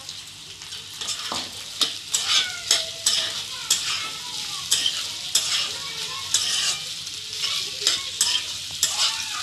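Steel spatula scraping and stirring boiled potato cubes and green peas in a metal kadhai, with the oil sizzling underneath. The scrapes come about twice a second.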